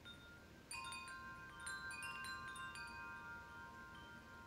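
Faint chimes: a cluster of high, bell-like notes struck one after another from about a second in, overlapping and ringing on as they slowly fade.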